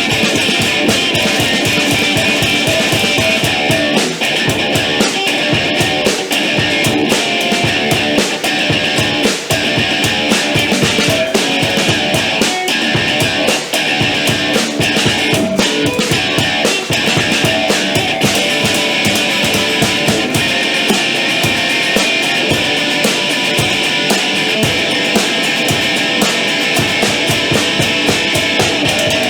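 A rock band playing live and loud: distorted electric guitar over a drum kit, with frequent drum hits.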